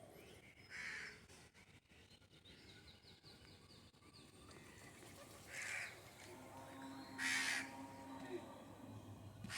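A bird giving short harsh calls, four of them spaced a few seconds apart, the loudest a little past the middle.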